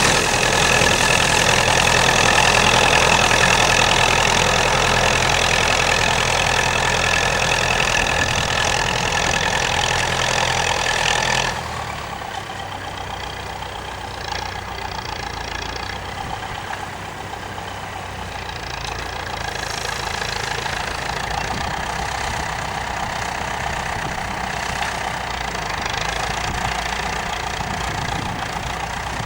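Massey-Ferguson 65 tractor engine running steadily. About a third of the way through the sound drops suddenly and carries on quieter and duller.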